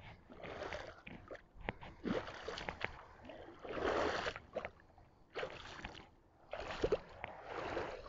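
Shallow seawater splashing and sloshing around bare feet wading through it, in uneven bursts with short lulls, loudest about four seconds in.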